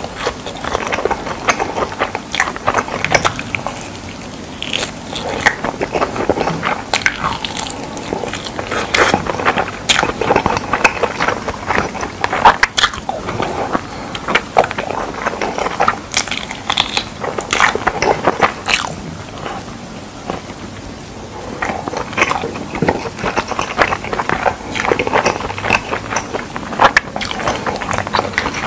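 A person biting into and chewing sauced fried pork: irregular crunching and chewing with many sharp crackling clicks, dropping briefly to quieter chewing twice.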